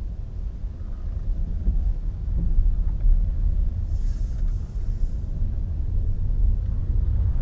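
Low, steady rumble of road and tyre noise inside the cabin of a moving Nissan Leaf electric car, with a brief hiss about four seconds in.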